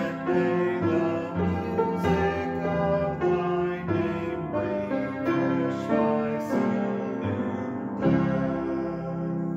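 Upright piano playing a hymn in slow chords, the last one struck about eight seconds in and left to ring on.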